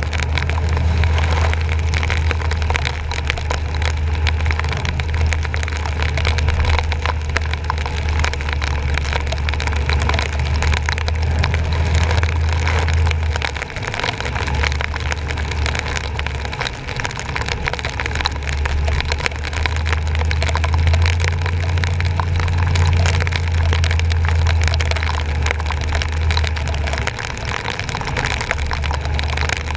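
Truck driving on rain-flooded streets, heard from a camera on its front bumper: a steady low rumble of engine and tyres under a constant crackling hiss of rain and water spray. The rumble dips briefly twice.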